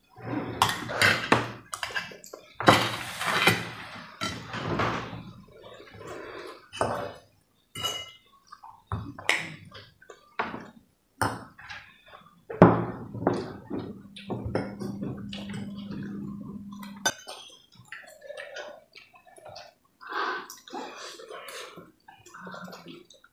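Metal forks clinking and scraping on ceramic plates in short, irregular clicks, with slurping and chewing as spicy instant noodles are eaten.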